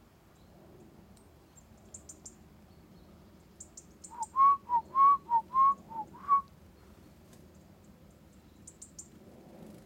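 A person whistling a quick run of about eight short notes, alternating between two pitches, lasting about two seconds in the middle. Faint, very high, thin calls of small birds come before and after it.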